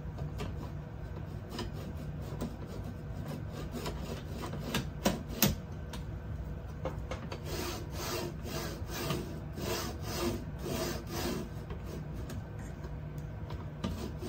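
3D printer's metal bed plate being pushed by hand along its linear-rail carriages, metal rubbing and scraping in short strokes. There are a few sharp clicks about five seconds in, and a quicker run of strokes in the second half.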